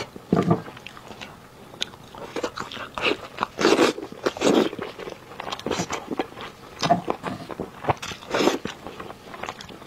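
Close-miked eating sounds of a person biting and chewing braised pork knuckle, with irregular bursts of smacks and crunches.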